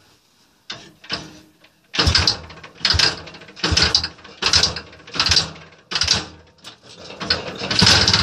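Muravey scooter engine being kick-started again and again, a short burst about every second that does not catch into a steady run. The first couple of seconds hold only small knocks.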